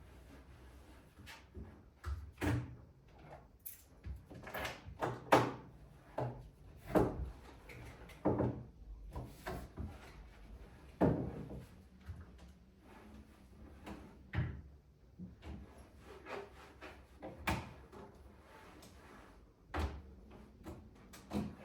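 Irregular knocks, clacks and rubbing from things being handled and set down while tidying a room, about ten sharp knocks spread unevenly through.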